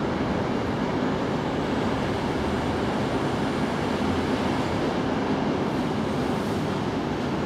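Steady outdoor background noise, a low rumble with a hiss over it, unbroken and without distinct events.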